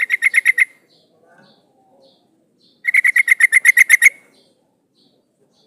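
Female yellow-vented bulbul (trucukan) calling: two chattering runs of quick, evenly repeated notes, about ten a second, a short run at the start and a longer one about three seconds in, with faint high chips between.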